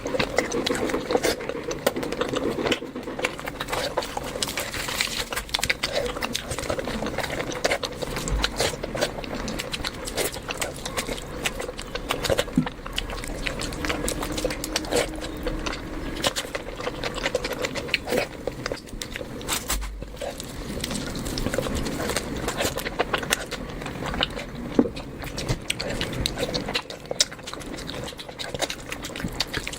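A person chewing and lip-smacking while eating, with many irregular wet clicks.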